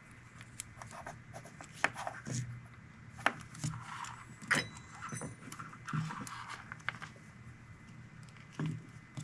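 Hand-handling noise of small plastic wire seals and connector parts being fitted onto oxygen-sensor wires: scattered light clicks and rustles, with sharper ticks about two, three and four and a half seconds in, over a faint low hum.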